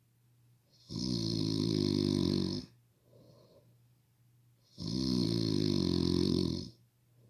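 Snoring from a sleeper: two long snores, each nearly two seconds, about four seconds apart, with faint breathing between.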